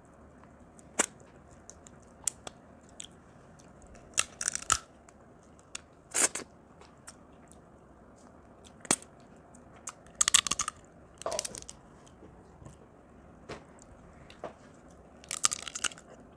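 Eating crab from a seafood boil: scattered sharp cracks and clicks of shell, with several short wet bursts of sucking and chewing.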